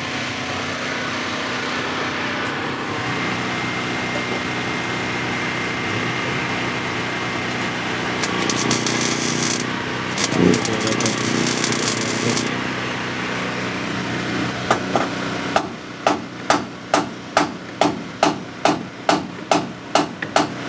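Hammer blows in a quick, even rhythm, about two and a half a second, over steady background engine noise; earlier, two short hissing bursts.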